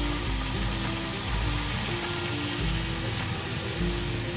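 Milk sizzling and bubbling as it is poured into a hot pan around butter-fried bread, under background music with a simple melody.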